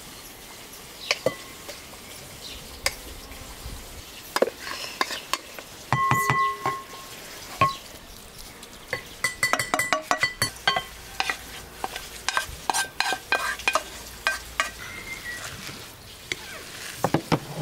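Spoon stirring boiled buckwheat in a glass bowl, with clicks and scrapes of the utensil against the glass. About six seconds in, a tap makes the bowl ring briefly. A dense run of quick clicks follows as the buckwheat is mixed with fried vegetables.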